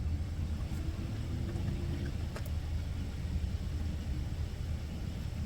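Diesel engine of a heavy truck idling with a steady low rumble.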